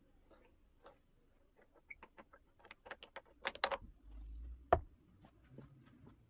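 Handling noise at a wood lathe's headstock: a run of light clicks and taps that quickens about three and a half seconds in, then one sharp knock a second later, as a part is taken off the bare spindle and set down.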